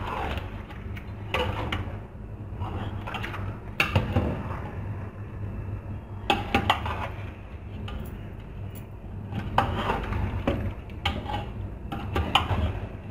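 Spoon scraping and knocking against a steel cooking pot at irregular intervals as chicken pieces are stirred into a thick masala, over a steady low hum.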